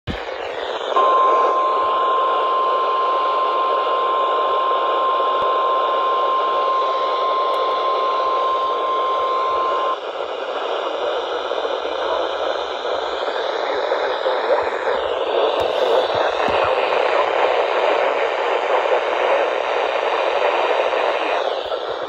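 Midland NOAA weather radio hissing with static, then sounding its steady high-pitched warning alert tone for about nine seconds, starting about a second in. The tone announces a severe thunderstorm warning broadcast. After it cuts off, the static hiss goes on.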